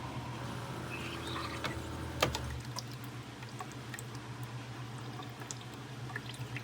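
Keurig K-Elite coffee maker humming steadily, with small ticks and faint liquid sounds; a sharp click comes a little over two seconds in, and a deep low tone stops just after it.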